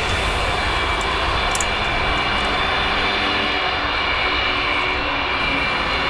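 Jet aircraft engines running steadily: a dense, even noise with a high whine held on top.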